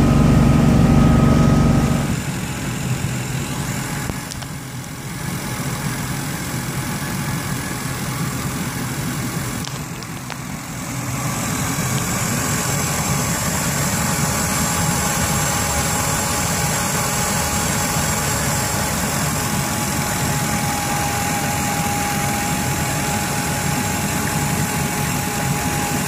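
Sterndrive engine of a 2002 StingRay 240LR boat running steadily underway. It drops in level about two seconds in, then grows louder with a thin high whine from about eleven seconds in.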